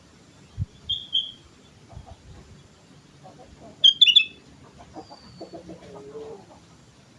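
Sooty-headed bulbul calling: two short bright whistled notes about a second in, then a loud quick burst of notes about four seconds in. Low clucking runs underneath, and there is a short thump just before the first notes.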